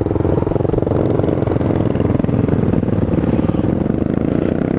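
Suzuki DR650's single-cylinder engine running hard as the bike pulls away and accelerates, with a steady throbbing note and rumble from riding.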